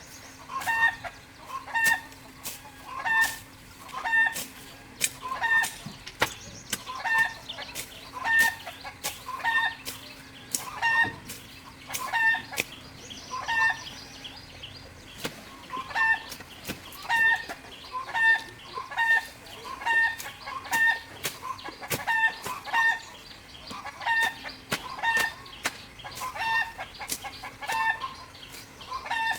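Chicken clucking over and over in short calls, about one a second, pausing briefly midway, with sharp clicks scattered among the calls.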